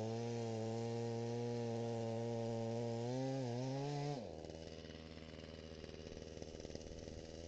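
Small two-stroke chainsaw engine running steadily at part throttle, wavering about three seconds in, then dropping to a quieter, lower idle about four seconds in.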